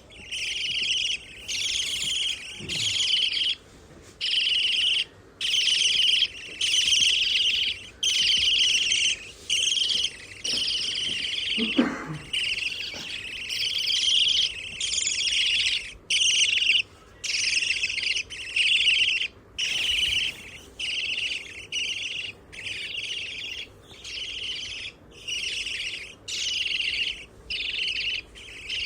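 Pet budgerigars chattering and chirping: busy, high warbling in bursts of a second or two, broken by short pauses.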